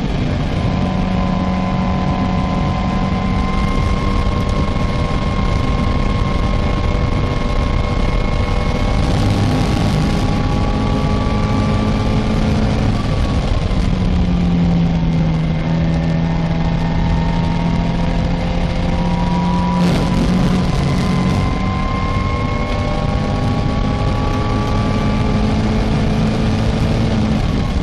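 Caterham Supersport's four-cylinder engine pulling at high revs, heard onboard in the open cockpit over heavy wind noise. The engine note climbs slowly, drops about 13 seconds in, then climbs again and falls near the end.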